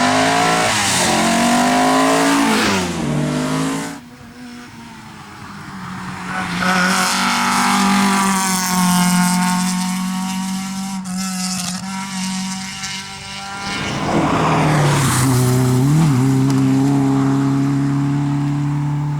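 Rally cars driven hard on a stage, their engines revving and climbing through the gears with sharp drops in pitch at each shift, in several short passes joined by abrupt cuts.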